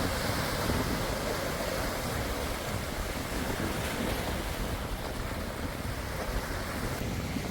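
Wind blowing on the microphone over the wash of a rough sea: a steady, unbroken rush with a fluttering low rumble.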